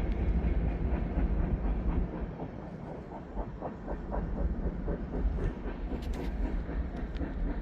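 A train rolling past, a steady low rumble with a run of rhythmic wheel clacks over the rail joints partway through.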